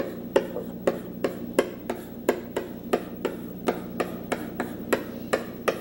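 Chalk striking and scraping on a chalkboard as kanji are written: a quick, uneven series of short sharp taps, about four a second, over a faint steady hum.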